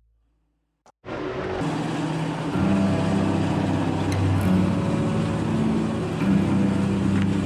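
Motor vehicle engine running steadily. It starts suddenly about a second in, and its low hum shifts in pitch every second or two.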